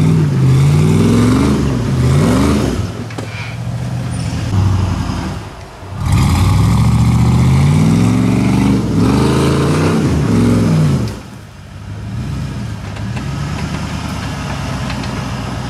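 Rock buggy's engine revving under load as it climbs a rock ledge, the pitch rising and falling in two long bursts with a short drop-off between them. Near the end it settles to a lower, steadier run.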